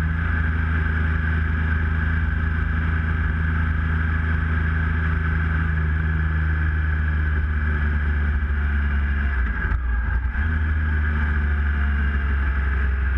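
Triumph Tiger Explorer 1200's three-cylinder engine running steadily at cruising speed, with wind and road noise. The engine note dips briefly about ten seconds in, then carries on.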